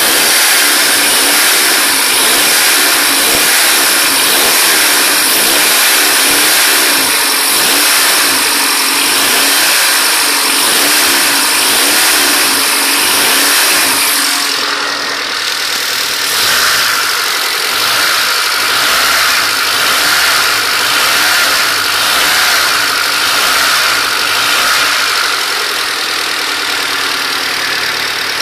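Honda Civic EG4's engine running, with a clacking noise whose cause the owner does not know. The sound changes somewhat about halfway through.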